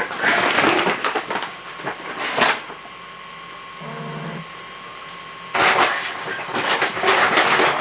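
Plastic grocery bags rustling and crinkling as their contents are rummaged through, in two spells with a quieter pause between them.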